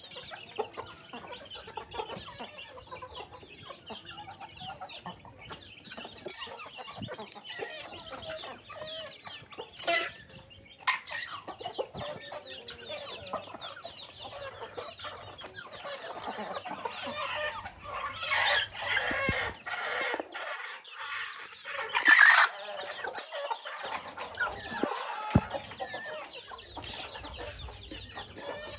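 A flock of chickens clucking continuously as they forage, many birds calling over one another. Louder calls come in the second half, the loudest about three quarters of the way through.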